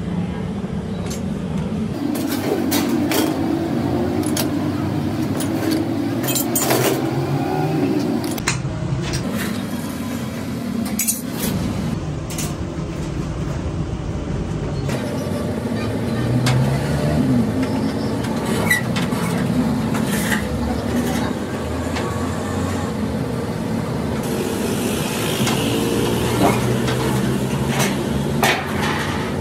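Chequered steel plate being handled and cut on metal shears: scattered clanks, knocks and scrapes of the sheet against the machines over a steady low mechanical hum.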